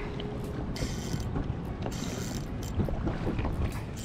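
Spinning reel being wound in against a hooked fish, its gears whirring and clicking in short spells, over wind noise on the microphone.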